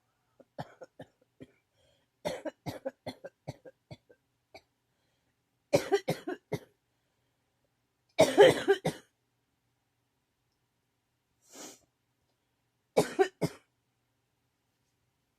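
A person coughing in a fit: runs of short coughs in quick succession, the loudest burst about eight seconds in, and a pair of coughs near the end.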